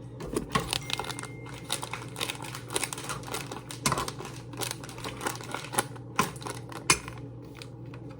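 Kitchen cooking noises: a busy run of irregular small clicks and crackles over a steady low hum.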